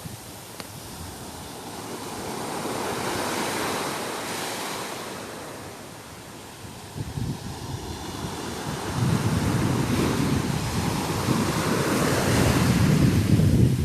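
Ocean waves breaking and washing ashore: one wave swells and fades about three seconds in, then a louder surge with a low rumble builds from about nine seconds on. Wind buffets the microphone.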